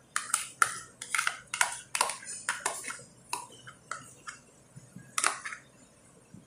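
Steel spoon scraping and tapping thick curd out of a plastic tub into a bowl: a quick, uneven run of sharp clicks and scrapes that thins out after about three seconds, with one louder click about five seconds in.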